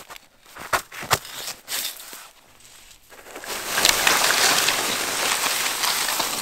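A few last strokes of a hand saw on wood, then from about halfway in a loud, steady rustling hiss.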